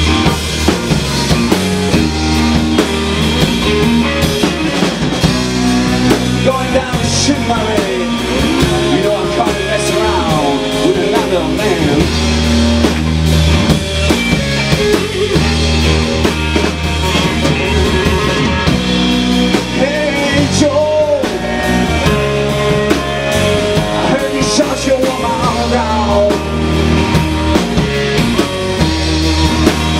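Live rock trio playing: electric guitar lead with sliding, bent notes over electric bass and a drum kit.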